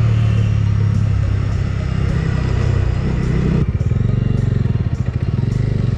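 Bajaj Dominar 250's single-cylinder engine running steadily under way, with road and wind noise. About three and a half seconds in, it changes to a quick, even pulsing beat.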